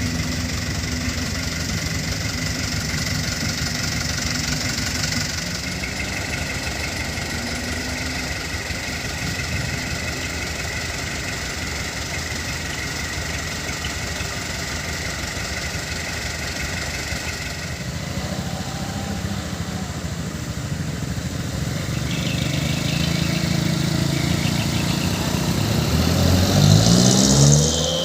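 Truck engine idling steadily, then revving up with rising pitch in the last few seconds.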